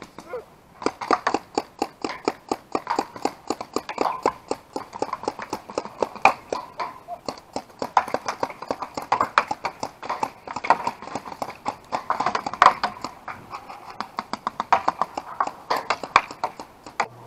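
Paintball markers firing in a long, irregular string of sharp pops, several a second.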